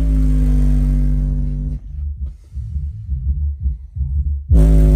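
A small 8-inch car-audio subwoofer in a sealed box playing a bass-heavy track loudly: held low notes, then a stretch of choppy deep bass pulses, with the held notes coming back loud near the end.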